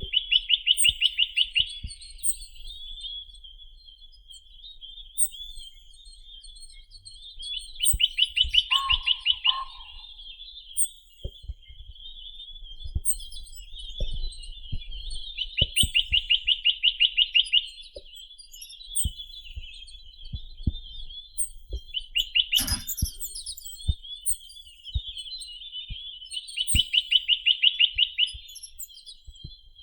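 Chinese nuthatch (Sitta villosa) singing: a fast, loud trill of about two seconds, given four times roughly every eight to ten seconds, with softer twittering notes between the trills. A single sharp click comes about two-thirds of the way through.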